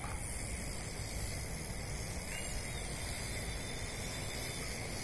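Steady outdoor background hiss with a low rumble underneath, and a faint short chirp about two seconds in.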